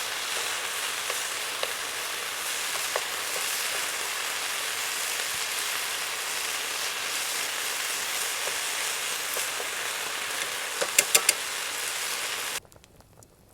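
Food sizzling and frying in a pan over a campfire, a steady hiss with a few sharp clicks about eleven seconds in. The sound cuts off abruptly near the end.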